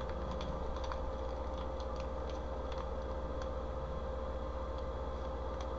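Steady background hum with a constant mid-pitched tone, and a scattering of faint, short clicks of a plastic-wrapped wax melt being handled and held to the nose.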